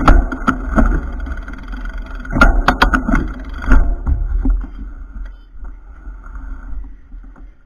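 Low rumble of wind and handling noise on a bicycle-mounted camera's microphone, with several sharp clicks and knocks right at the start and again about two and a half to four seconds in. It eases off in the second half.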